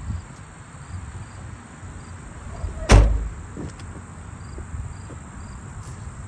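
Cat D5N LGP dozer's diesel engine idling low and steady, with one loud thump about three seconds in.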